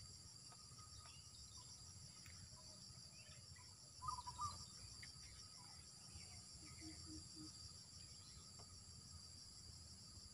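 Faint steady chorus of insects, a high-pitched drone with a fine even pulsing, with a brief faint chirp about four seconds in.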